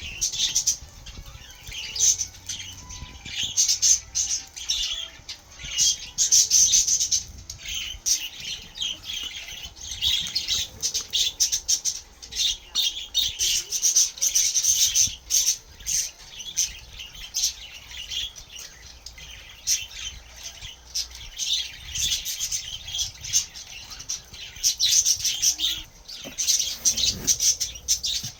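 Crinkling and rustling of paper or packaging in rapid, irregular bursts.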